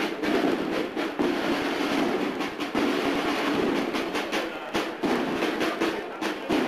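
The drums of a cornet-and-drum processional band (banda de cornetas y tambores) playing a march, with a steady run of sharp drum strokes.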